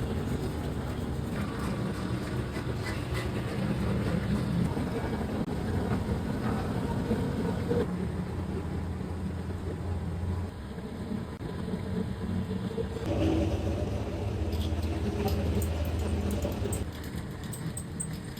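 Steady low mechanical hum and rumble of running machinery, dipping and picking up again a couple of times, with scattered light clicks near the end.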